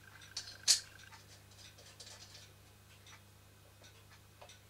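A sharp click a little under a second in, then faint, irregular light ticks over a faint steady low hum.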